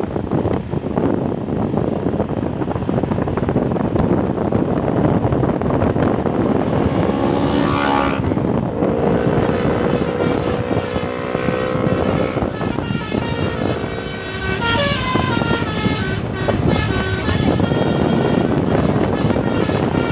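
Steady rumble of bus and road noise. About seven seconds in, the bus's telolet basuri musical horn starts playing a tune: several tones sound together and step up and down in pitch, higher notes coming in during the second half.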